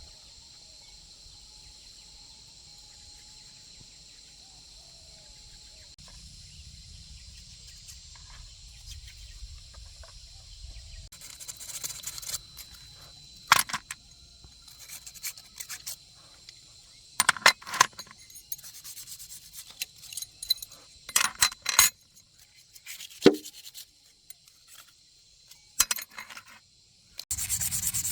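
A steady high insect buzz at first, then a string of sharp metallic clinks and scrapes from tools and parts being handled during a tractor repair. A harsh sanding scrape starts just before the end.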